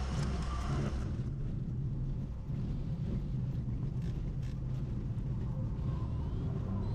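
Cessna 180's engine and propeller drone steadily under power with rushing air. About a second in, the hiss fades and the low engine tones shift slightly upward.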